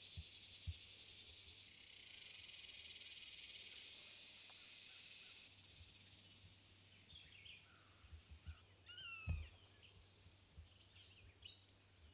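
Faint woodland ambience: a steady, shrill insect chorus with a fast pulse, which shifts abruptly in level twice, then several short chirping bird calls from about seven seconds in. The loudest call comes about nine seconds in, together with a low thump.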